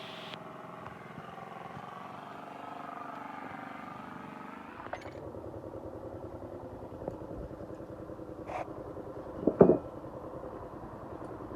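An engine running steadily, with a quick even pulse, broken by a couple of sharp clicks and one louder short clatter a little over three-quarters of the way through.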